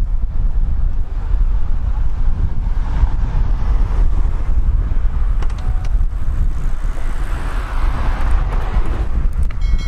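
Wind rumbling on the microphone over street traffic, with a car going by, swelling and fading about seven to nine seconds in.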